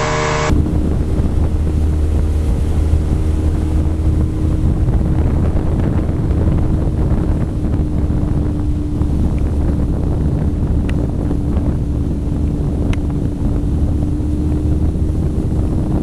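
Motorboat with a Yamaha 40 hp outboard running steadily at planing speed, heard as a steady low rumble under heavy wind rushing over the microphone. About half a second in the sound cuts abruptly from the engine heard on board to this outside view.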